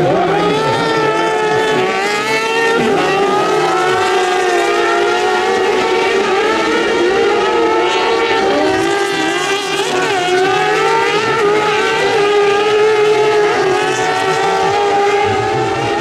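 Several kartcross buggies racing together, their high-revving engines overlapping, each rising and falling in pitch as the cars accelerate and slow through the corners.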